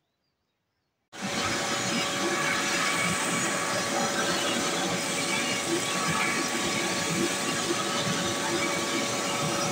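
Vacuum cleaner switched on about a second in, then running steadily with a constant motor hum, sucking up drywall dust and crumbs from the floor.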